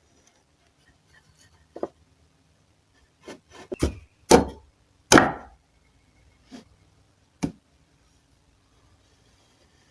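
Pieces of wood being handled and set down: a string of separate wooden knocks and clunks, several close together in the middle and the loudest two about a second apart, with a soft rub between them.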